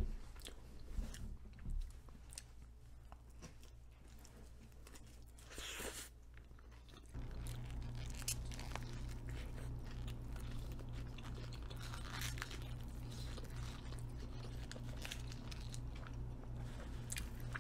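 Close-up eating sounds: chewing, small mouth clicks and bites, later biting into an In-N-Out Double-Double burger held in its paper wrapper. About seven seconds in a steady low hum starts under the chewing and runs on.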